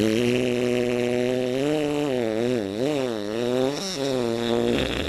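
A long, drawn-out fart sound effect: one low pitched tone held steady, then wavering up and down in pitch through the middle before settling again.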